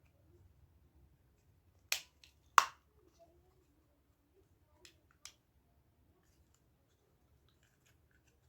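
Sharp plastic clicks as the opened mini wireless speaker's casing is handled: two loud clicks about two seconds in, then two fainter ones a few seconds later.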